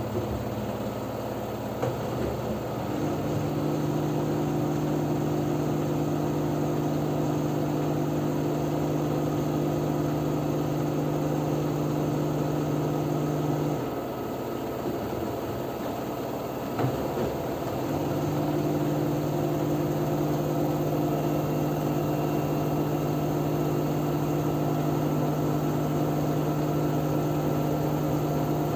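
LG F10B9LD front-loading washing machine in its spin cycle, the drum turning with a steady motor hum. About halfway through, the hum drops away for about four seconds, then comes back after a click.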